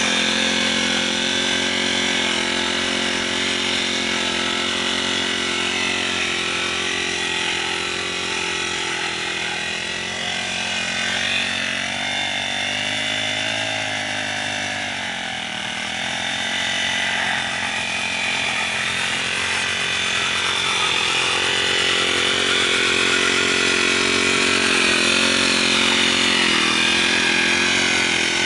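Brush cutter with a Honda GX35 four-stroke engine running at high speed as its blade cuts grass; the engine note sags for a few seconds about halfway through and then climbs back up.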